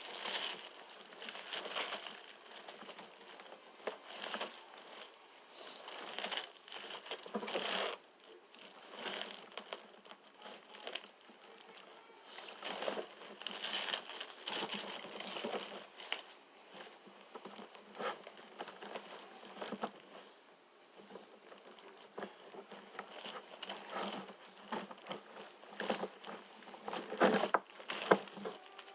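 Plastic action figures being handled and set up on a surface: irregular small clicks, taps and rustling, with a few sharper knocks near the end.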